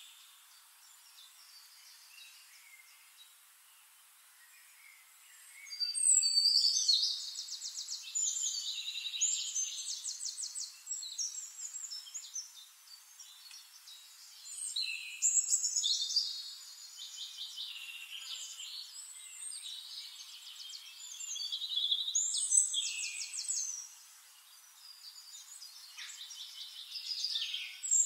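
Small birds chirping and singing rapid high trills in repeated bouts, starting about six seconds in after a quieter stretch.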